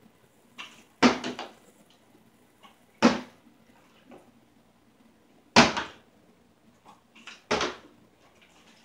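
A plastic water bottle with water in it, flipped and landing hard on a cloth-covered table: four sharp thuds about two seconds apart, each followed by a quick bounce or two.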